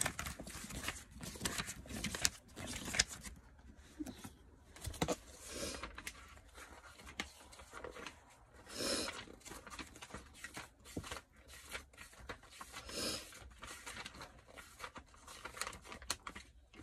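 Rummaging through small objects in search of a bottle: irregular light clicks and knocks as things are picked up and set down, with occasional rustling.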